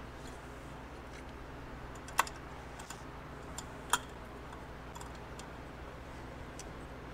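Light clicks and taps of metal parts as the homemade case splitter is handled on the engine case, with two sharper clicks about two and four seconds in.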